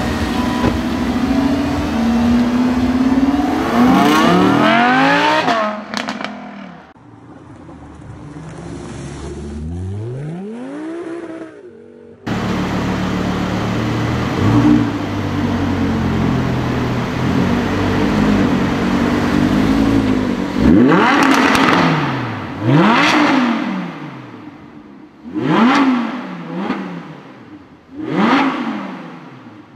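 Audi R8's 5.2-litre V10 engine revving in an underground car park. It opens with a long climb in engine pitch under acceleration. Near the end come four quick throttle blips, each rising sharply and falling away.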